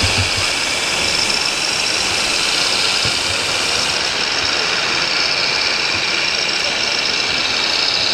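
Radio-controlled scale truck's engine sound module running steadily at idle, over a constant background hiss.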